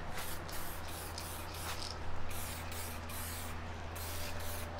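SprayMax 2K aerosol can spraying black base coat, hissing in quick short bursts. A steady low hum runs underneath.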